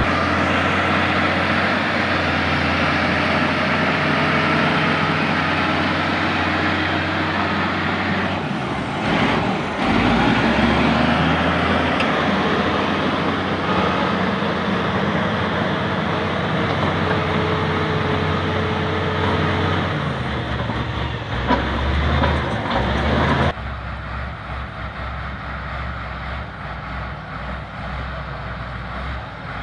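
LiuGong bulldozer's diesel engine running under load as it grades earth, with a dense clattering noise over the engine hum. The engine note shifts about ten seconds in. About three-quarters of the way through, the sound drops suddenly to a quieter, duller level.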